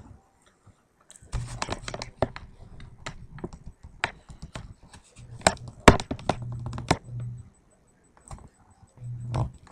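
Irregular sharp clicks and scratchy rustling close to the microphone, loudest about six seconds in, with a low hum coming and going in patches.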